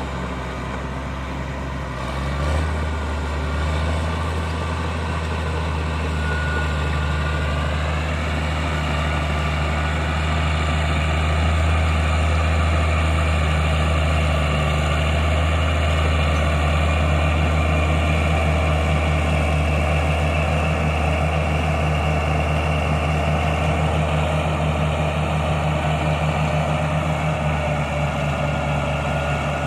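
Caterpillar D6G bulldozer's diesel engine running steadily, picking up about two and a half seconds in. A few seconds later a high whine rises in pitch and then holds.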